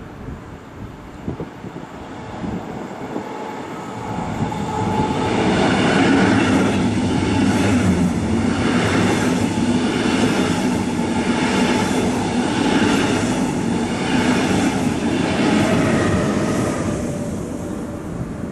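Double-deck Regional-Express train running through the station at speed without stopping. Wheels on rails swell in as it approaches, then a loud rolling noise with a regular surge a little over a second apart as each coach passes, fading near the end.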